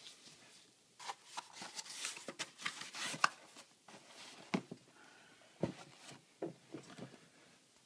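Sneakers being handled: irregular rustling and brushing with a few sharper light knocks, busiest in the first half.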